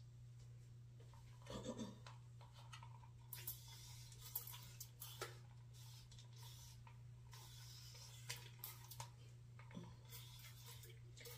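Faint, scattered rubbing and scratching of fingers working through damp locs, over a steady low hum.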